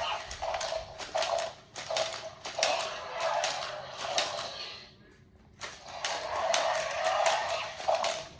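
Mattel Jurassic World Charge and Chomp Carnotaurus toy's push-button leg mechanism working: rapid plastic clicking and clattering in runs, with a short pause about five seconds in.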